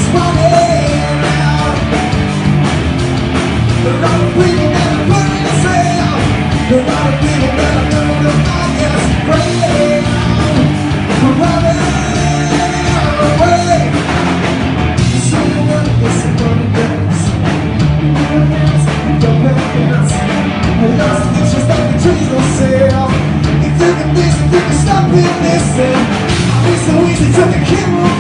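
Grunge rock band playing live through the PA, loud and steady: distorted electric guitar, bass guitar and a driving drum kit.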